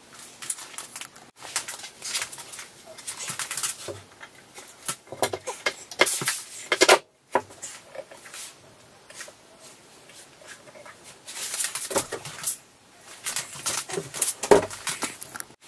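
Handling sounds of a reclaimed cedar plank shelf and its square steel bar legs: clothing rustles with light clicks, knocks and scrapes in short bursts broken by abrupt cuts, and a dull thump near the end.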